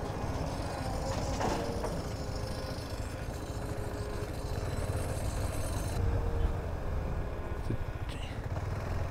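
Motorcycle engine running steadily at low road speed on a rough dirt road, with wind and road noise and a brief knock about a second and a half in.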